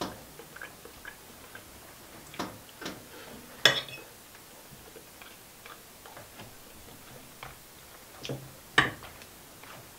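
Fork clicking and scraping against a plate while eating: scattered, irregular sharp clicks, the loudest about three and a half seconds in and another just before nine seconds.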